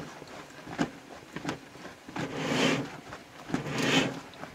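Open wood fire crackling with a few sharp pops, then two longer rushing swells of noise, about two and three and a half seconds in.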